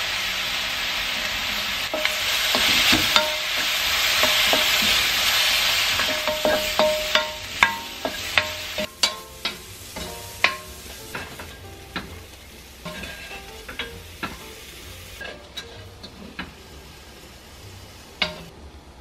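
Abalone and vegetables sizzling as they are stir-fried in soy sauce and oyster sauce in a wok, with a spatula clicking and scraping against the pan. The sizzle is loud at first and dies down about halfway through, while the spatula knocks carry on.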